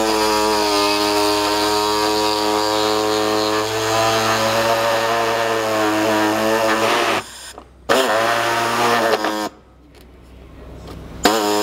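Pneumatic air saw cutting off plastic mounting tabs along a taped line: a steady buzzing with a hiss for about seven seconds, a brief stop, then a second short run of about a second and a half.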